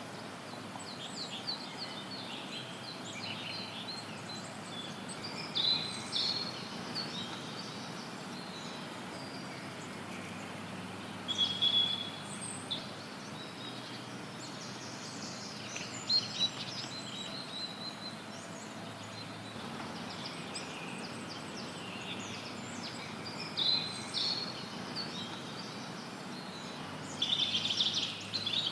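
Forest birds singing and chirping in short bursts every few seconds over a steady hiss of white noise, with the busiest singing near the end.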